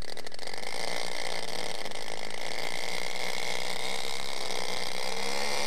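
Engines of a twin-engined radio-controlled B-25 Mitchell scale model running steadily at high throttle as it rolls down the runway on its takeoff run.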